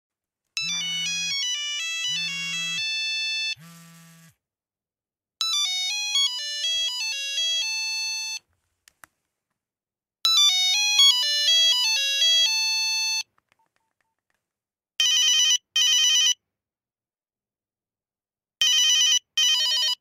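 Old Nokia mobile phone ringtones played one after another: three short beeping melodies of about three seconds each, separated by pauses, the first with a low buzz under its opening notes. Two pairs of short buzzy beeps follow near the end.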